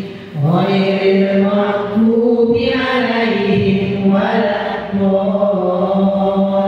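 Group of women's voices chanting a devotional chant in unison, in long held notes that slide from one pitch to the next, with a short pause for breath just after the start.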